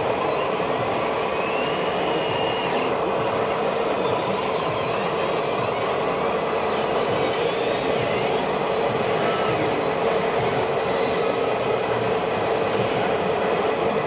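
A scale RC Liebherr 634 crawler loader working: its electric drive and hydraulics whine steadily, with faint rising and falling whines as it moves and lifts its bucket.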